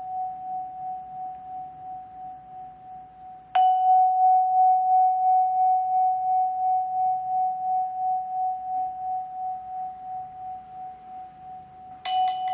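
Musser vibraphone ringing one high note with an even pulsing wobble. The note is struck again about three and a half seconds in, fades slowly, and is struck once more with a sharper click near the end.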